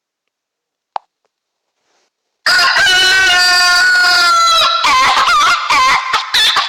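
Novelty phone ringtone of a chicken: a single click about a second in, then from about two and a half seconds in a loud rooster crow held for about two seconds, followed by a run of wobbly clucking calls.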